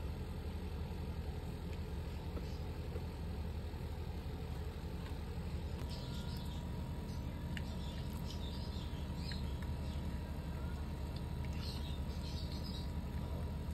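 Faint high squeaks and chirps from very young Shih Tzu puppies playing, in small clusters from about halfway through, over a steady low hum.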